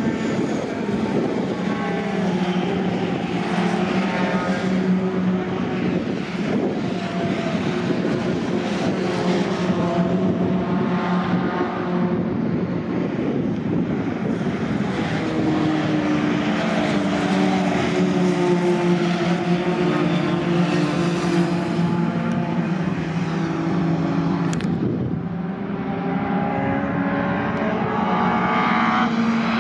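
Racing pickup trucks' engines running hard at speed, several at once, their pitch rising and falling as the trucks brake, change gear and accelerate past.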